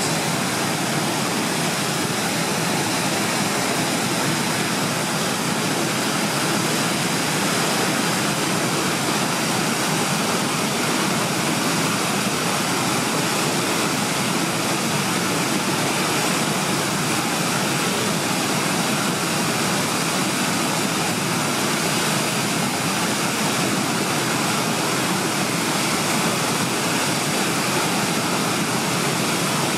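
Tidal rapids running fast through the narrows during a very large tide, a steady rush of whitewater and a breaking standing wave that does not change in level.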